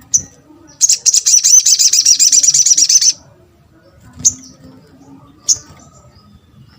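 Sogon (sogok ontong) bird calling: a single sharp chirp, then a loud, rapid, high-pitched trill lasting about two seconds, followed by two more single sharp chirps spaced about a second apart.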